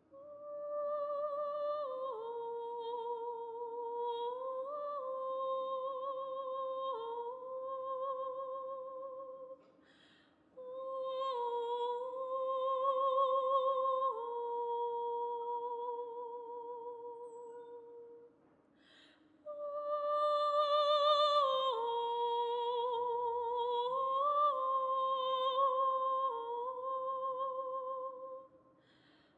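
Soprano singing long, held notes with a wide vibrato, in three slow phrases with short pauses between them.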